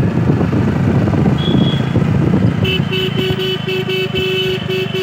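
Motorcycle engine running while riding alongside the runners, with rough wind noise on the microphone. About two and a half seconds in, a beep starts repeating three to four times a second.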